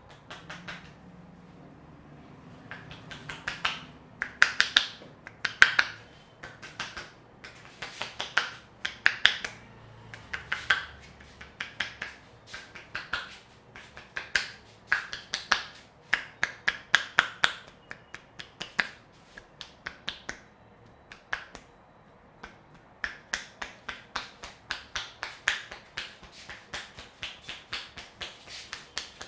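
Percussive head massage: a barber's hands striking the scalp in quick bursts of sharp clicking slaps, several a second, with a short pause about two-thirds of the way through.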